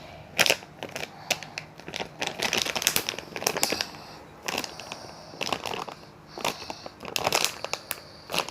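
Irregular crinkling and clicking as a squishy toy is handled.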